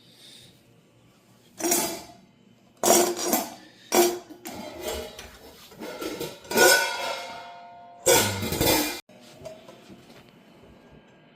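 Metal drum hardware clanking and clinking as it is handled, about half a dozen sharp knocks with short rings, the last one cut off abruptly.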